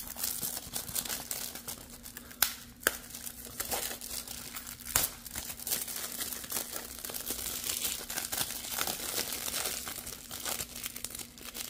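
Thin plastic shrink-wrap being peeled and torn off a Blu-ray case by hand, crinkling and crackling steadily, with a few sharp clicks in the first half.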